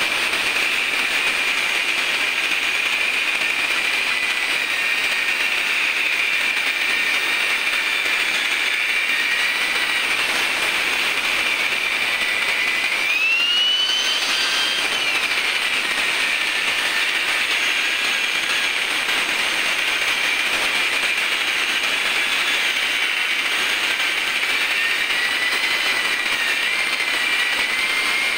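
Handheld angle grinder cutting into a brick wall: a steady, high motor whine over the grinding noise of the disc in the brick. The whine rises in pitch for about a second halfway through, then settles back, and wavers again near the end.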